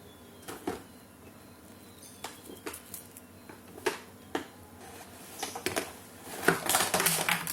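Toy packaging being handled during an unboxing: scattered light taps and clicks, then a louder rustle of packaging for about the last second.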